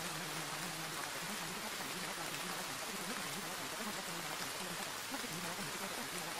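Steady rain-like hiss of masking noise, even and unbroken, with a faint low murmur underneath: the buried affirmations of a subliminal track.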